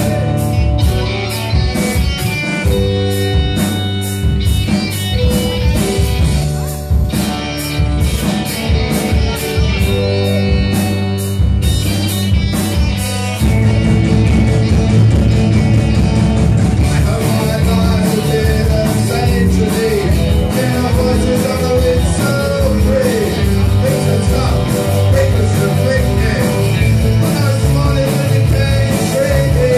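Live rock band playing: electric guitars, bass guitar, drums and electric keyboard. The music gets louder and fuller about halfway through.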